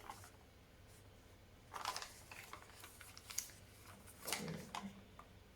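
Paper pages of a handmade envelope journal rustling as they are turned and handled, in a few short soft brushes.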